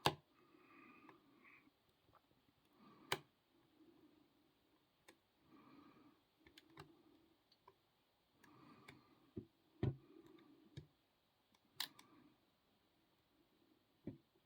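Lock picking in a Master 130 padlock: a pick and tension wrench scraping faintly in the keyway, with a handful of sharp metal clicks scattered through, the loudest about ten seconds in.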